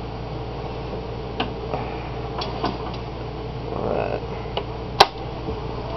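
A few light clicks and knocks of tool handling as a hole saw bit in the tailstock is brought up to a wooden block on a stopped wood lathe, with a short rustle about four seconds in and one loud, sharp click about five seconds in. A steady hum runs underneath.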